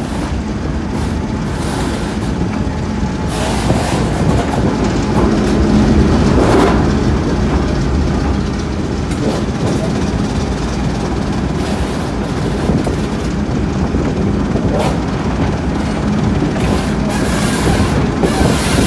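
A train on the move behind a Class 08 diesel shunter: its English Electric six-cylinder diesel engine running with a steady hum, over steady wheel-and-rail noise with a few short knocks.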